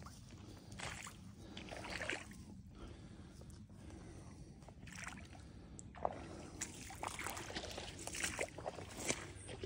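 Footsteps sloshing through shallow water and mud: a series of irregularly spaced wet splashes.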